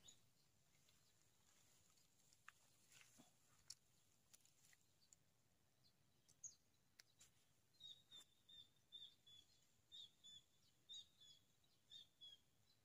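Near silence by the pond. From about eight seconds in, faint short high chirps repeat roughly twice a second, most likely a small bird calling.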